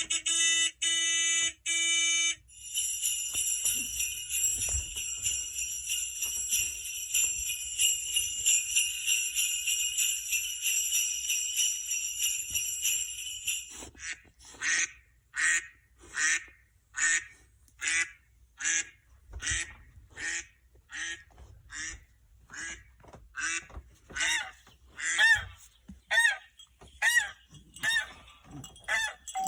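Sound effects played through a speaker: a short run of electronic beeps, then a long steady jingling of bells, then from about halfway a regular series of short honking calls like a goose, about two every second to the end.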